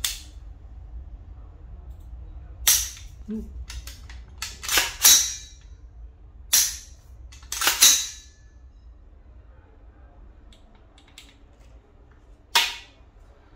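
Radical Firearms RF-15 AR-15 rifle being dry-fired and its action worked: a string of sharp metallic clicks and clacks at irregular intervals, the last loud one near the end. The trigger is sticking slightly, which the owner puts down to a mil-spec trigger not yet broken in.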